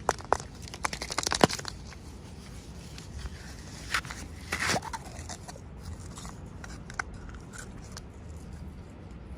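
Packaging being handled during an unboxing. There are sharp clicks and a quick run of crackles about a second in, a brief rustling tear near the middle, then scattered light clicks.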